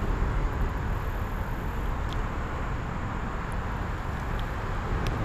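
Steady rumble of traffic on a busy highway, with a couple of faint clicks.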